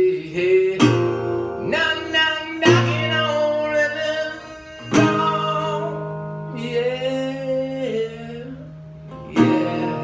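A man singing with a metal-bodied resonator guitar, strummed chords ringing under held, bending sung notes. A last hard strum near the end rings out as the song closes.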